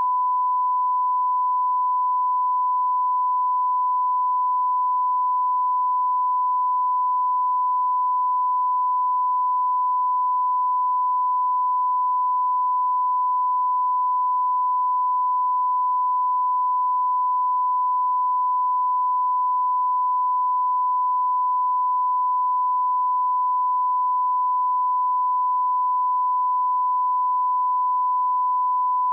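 Steady 1 kHz reference tone, a single continuous sine tone: the broadcast line-up tone that goes with colour bars at the head of a programme tape, used to set audio levels.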